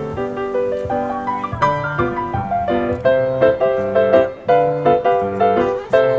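Background piano music: a melody over chords, with notes struck in a gentle, unhurried rhythm.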